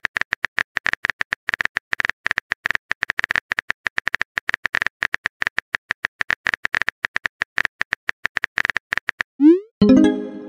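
Phone keyboard typing clicks from a texting app, rapid and uneven, as a message is typed out letter by letter. About nine seconds in they stop, and a short rising swoosh and a brief chime follow as the message is sent.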